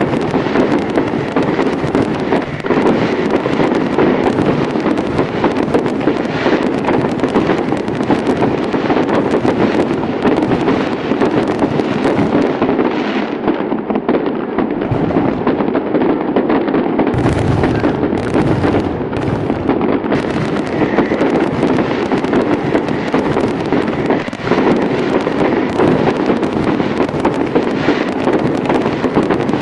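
Fireworks display: a dense, continuous barrage of crackling bursts and bangs, with a deeper rumble joining a little past halfway.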